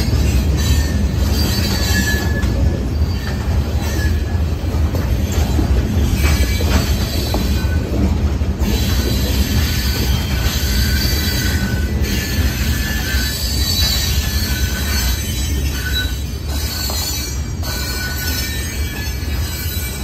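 Freight train of hopper cars rolling past at a grade crossing: a steady low rumble of wheels on rail, with thin high wheel squeals now and then, easing slightly near the end.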